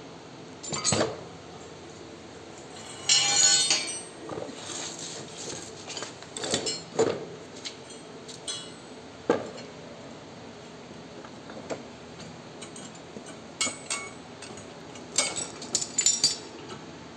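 Scattered metallic clinks and knocks of steel seed-drill parts (spoked wheels, shaft and fittings) being handled and fitted, with a longer ringing clatter about three seconds in.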